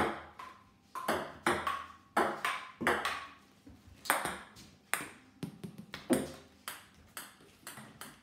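Table tennis ball in a rally, clicking sharply off the paddles and bouncing on a wooden dining table, one or two hits a second.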